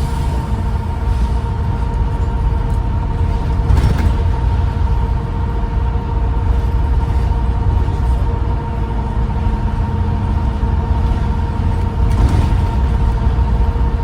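Transdev Keighley bus 1823 under way: low engine rumble with a steady whine, the turbo whine this bus is known for, through its worn ('knackered') ZF automatic gearbox. A sharp knock or rattle sounds about four seconds in.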